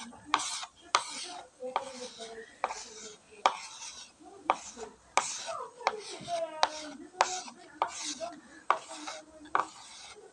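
Yellow chalk scratching across a chalkboard in quick, even strokes, about two a second, as hair is shaded in.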